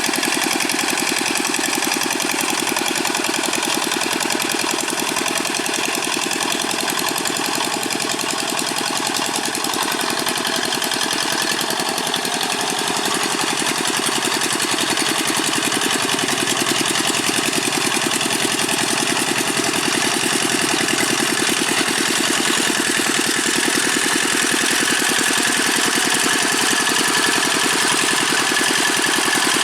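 Old Dongfeng single-cylinder diesel engine of a Quick G600 hand tractor running steadily with a fast, even knock, getting a little louder about halfway through.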